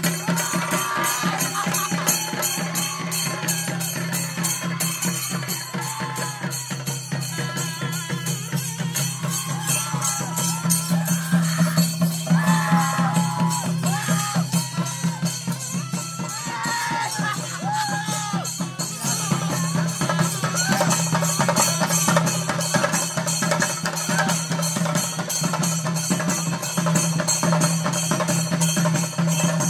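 Chenda drums beaten fast and without a break with sticks, over a steady metallic jingling, as ritual accompaniment to a theyyam dance. A wavering melody rises above the drumming in the middle.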